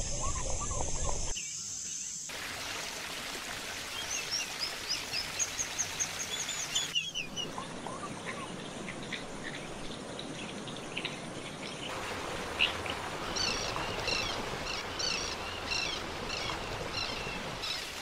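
Small songbirds chirping and singing in quick, high, repeated phrases over a steady background hiss. The recording changes abruptly several times.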